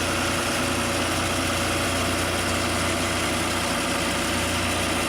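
Heavy engine idling steadily: an even, low hum that holds unchanged throughout.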